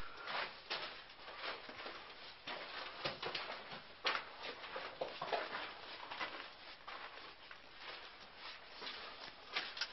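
Irregular footsteps crunching and scuffing over stone rubble and grit, with a sharp knock at the very start, in a narrow brick-and-rock passage.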